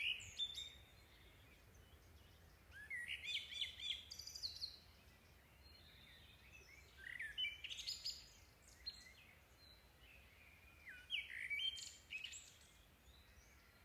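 Birds chirping in three short bursts of quick, high chirps spaced about four seconds apart, with near silence between the bursts.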